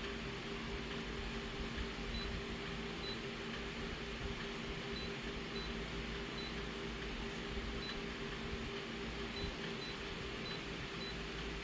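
Steady mechanical hum with a low whirr and two constant low tones, with faint short high pips every second or so.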